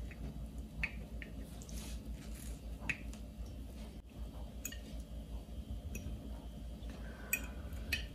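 Table knife cutting down through a stack of syrup-soaked pancakes, with soft squishing and scattered light clicks of the cutlery against the ceramic plate.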